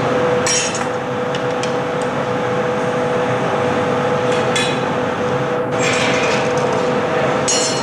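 Steady roar of a glassblowing studio's furnace and blowers with a constant hum, broken by a few short, sharp clinks of tools against the blowpipe or glass.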